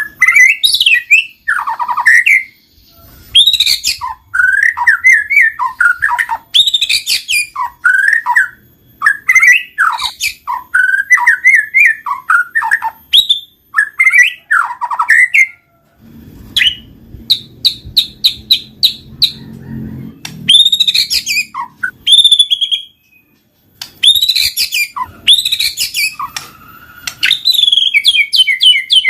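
White-rumped shama (murai batu) in full, continuous song: loud, varied whistled phrases that swoop up and down, broken by short pauses, with a fast run of repeated notes a little past the middle.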